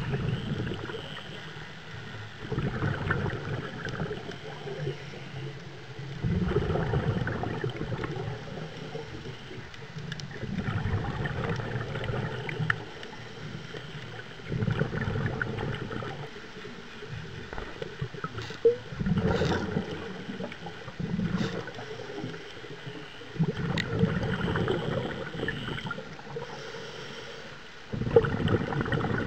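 Scuba diver breathing through a regulator, heard underwater: exhaled bubbles gurgle past in a burst of one to two seconds about every four seconds, with quieter pauses for each inhale and a few small clicks between.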